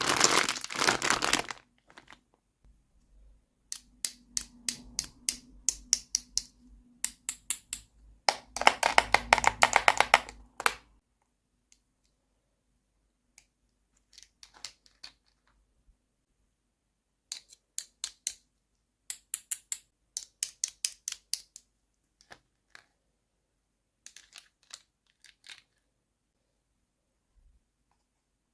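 Close handling of plastic toy packaging and small plastic toy pieces: bursts of rapid crinkling and clicking, each a few seconds long, with silent gaps between.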